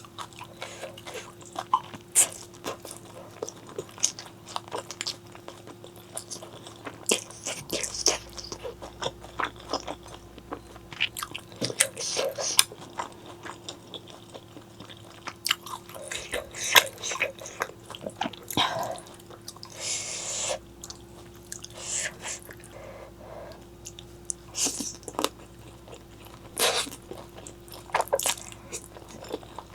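Close-miked eating: crunchy bites and chewing, with many short, sharp crunches at an irregular pace over a faint steady hum.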